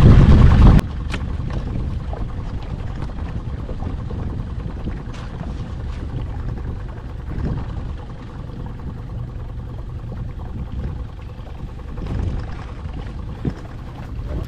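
A loud sound cuts off abruptly just under a second in, leaving a steady low rumble of wind and water around an open fishing boat, with a few faint clicks.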